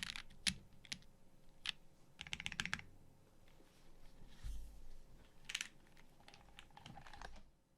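Custom mechanical keyboard with a stainless steel plate, lubed vintage Cherry MX Black linear switches and GMK keycaps being typed on in short bursts with brief pauses between them. The typing stops shortly before the end.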